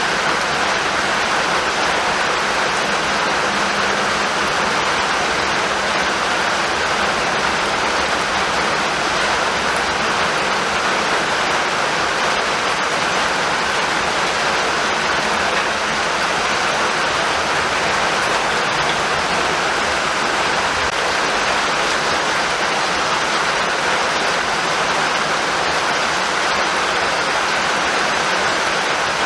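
Steady rainfall, an even, unbroken hiss of falling rain with no thunder.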